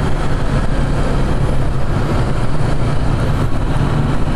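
Motorcycle engine running at a steady cruising speed while riding, with wind and road noise rushing over the microphone.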